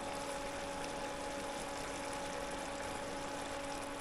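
An electric kitchen fan running: a steady rush of air with a constant low hum.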